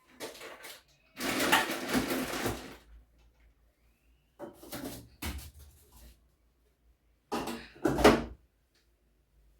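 Refrigerator drawers and their contents being handled as the fridge is emptied: scraping slides and knocks in four separate bursts, the loudest knock near the end.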